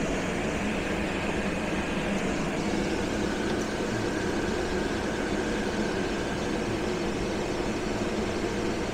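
CountryMod 24-volt DC low-profile rooftop air conditioner running at full cooling, fan on its highest setting and inverter compressor ramping up under load: a steady rush of air with a low hum.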